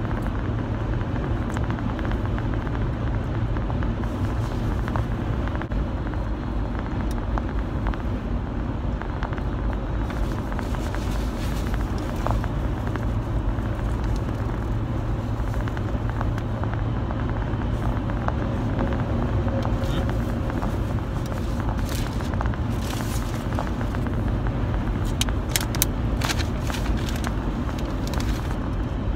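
Steady road and engine rumble inside a moving car's cabin, with a few sharp clicks and rustles in the later seconds.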